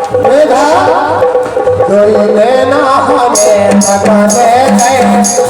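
Instrumental interlude of an Indian folk song: a gliding, ornamented melody line, with a steady drum rhythm joining about two seconds in.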